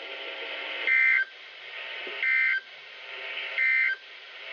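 NOAA Weather Radio EAS end-of-message data tones: three short, identical bursts of high warbling digital data about 1.3 s apart, marking the end of the severe thunderstorm warning broadcast. They play over steady background hiss.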